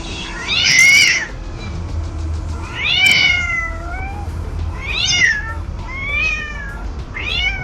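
AI-generated sound effect from the TangoFlux text-to-audio model of two cats fighting: about five drawn-out yowls, each sliding down in pitch, over a low steady rumble.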